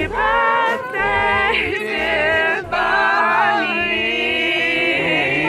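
Music of several layered voices singing together, with a low bass line stepping beneath them.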